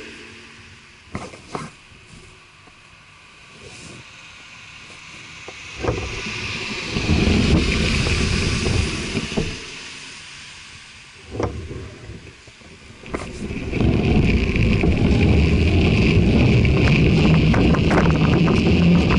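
A car passes close by, its engine and tyre noise swelling about six seconds in and fading a few seconds later. About thirteen seconds in, the bicycle sets off, and steady wind noise on the microphone and tyre rumble take over. A few sharp clicks come near the start and again around the middle.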